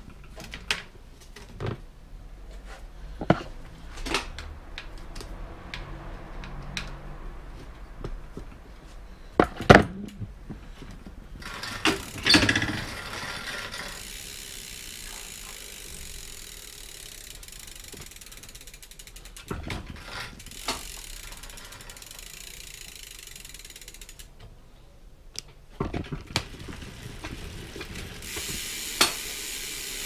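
Ratcheting and scattered metallic clicks and knocks from hands-on work at a bicycle's rear wheel and hub, the loudest knock about ten seconds in.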